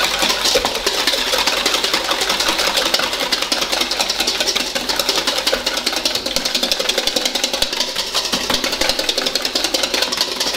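Wire whisk beating egg in a stainless steel bowl: a fast, steady run of metallic clicks and scrapes against the bowl.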